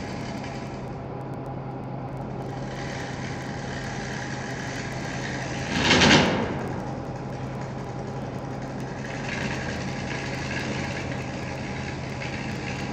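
Wood lathe running with a steady motor hum while a hand-held turning tool cuts a spinning wooden spindle, giving a continuous hiss of shavings. About six seconds in there is a brief loud rasp as the tool bites harder, and the cutting hiss picks up again near the end.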